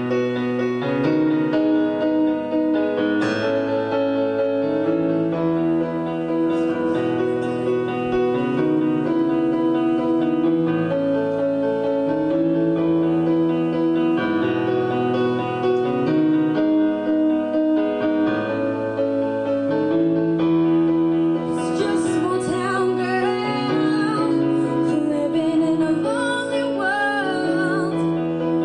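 Electronic keyboard on a piano voice playing a ballad introduction, holding chords that change every couple of seconds. Some twenty seconds in, a young female voice starts singing over it into a microphone.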